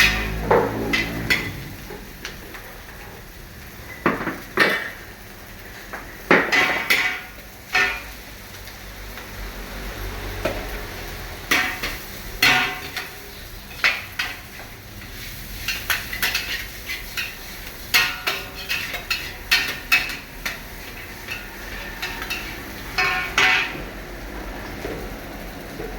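Metal spatula striking and scraping a wok while stir-frying fried rice: irregular sharp clanks, some in quick clusters, over a steady low rumble.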